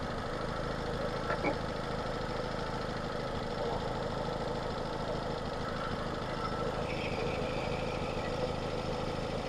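Nissan X-Trail T30 petrol engine idling steadily. It has a slightly odd note that the mechanic puts down to coolant getting into the engine after overheating; the exhaust is wet.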